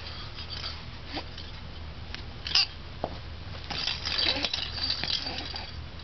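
Small beads rattling and clicking inside a clear plastic baby ball rattle as it is handled, in scattered clicks and then a denser stretch of rattling after about three and a half seconds. A short high baby squeal comes about two and a half seconds in.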